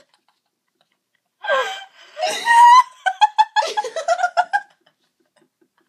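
High-pitched laughter starts about a second and a half in after dead silence. A loud, high stretch is followed by rapid bursts of giggling that die away near the end.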